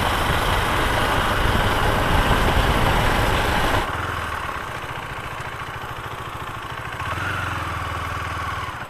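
KTM Duke 390's single-cylinder engine running with wind noise over the microphone, then, about four seconds in, the noise drops away and the engine idles with a steady, even pulse.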